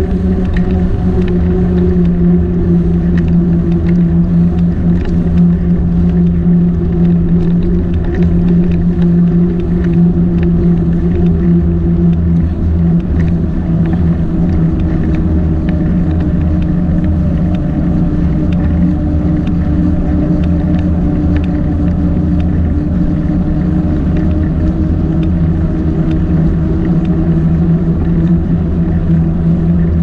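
A motor running steadily at an even pitch over a low rumble, its pitch sagging a little midway and coming back up.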